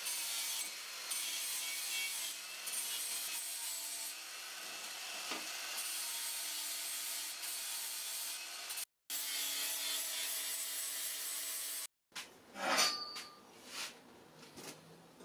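Angle grinder with an abrasive disc grinding the end of a steel pipe to square it: a steady motor whine under the hiss of the disc on metal. It stops about three-quarters of the way through, and a few light metal knocks follow as the pipe is handled.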